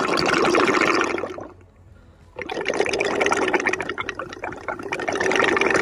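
Hydraulic oil gurgling and bubbling through the Mudcat dredge's cutter-head hydraulic drive as it turns, the sign of air in the hydraulic lines, which the crew take for an air or hydraulic lock. Two spells of gurgling with a pause of about a second between them, like a rumbling stomach.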